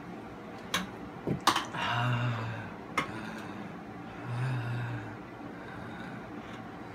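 A few sharp clicks, then two short, low, breathy groans from a man about two seconds apart, with another click between them. The groans are his reaction to a mouth burned by extreme sour candy.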